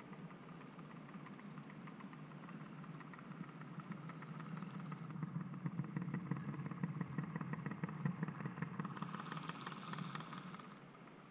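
OO gauge model Class 08 diesel shunter running past, a steady hum with fast light clicking from its wheels on the track. It grows louder as it comes close and drops away shortly before the end.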